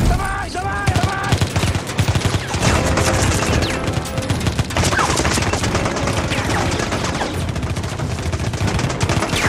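Automatic rifle fire in a dense, near-continuous volley of rapid shots.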